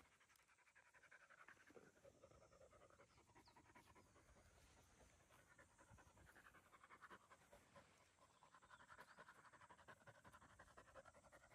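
Yellow Labrador Retriever puppy panting faintly and rapidly, hot and winded from frisbee practice.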